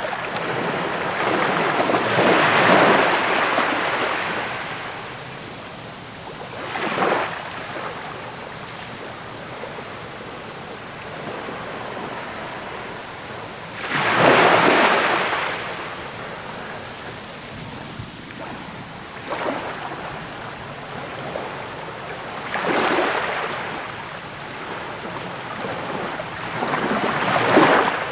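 Sea waves breaking and washing in foam, with a steady hiss between them and separate surges of rushing water, the biggest about 3 seconds and 14 seconds in, others near 7, 23 and 27 seconds.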